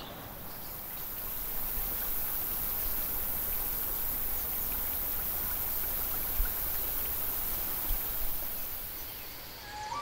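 Steady rush of flowing river water. It swells in over the first second or two and fades near the end, with two brief louder moments a little past the middle.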